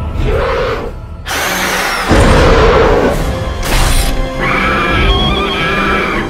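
Dramatic soundtrack music with monster-fight sound effects: two loud crashing hits in the first half, then about two seconds of Destoroyah's high, screeching kaiju roar near the end.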